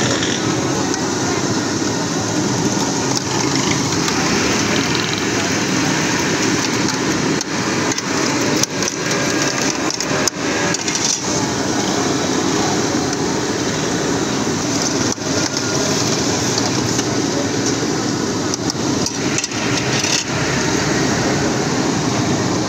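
French fries deep-frying in wire baskets in large pots of hot oil: a steady, dense sizzle, with street traffic and voices in the background and a few sharp clicks of metal against metal.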